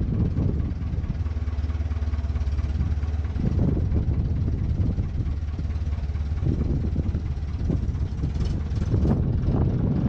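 Old JCB backhoe's diesel engine running steadily at idle.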